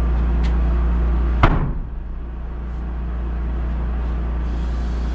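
A new entry door thumping shut once, hard, about a second and a half in, with a lighter click before it. A steady low hum runs underneath.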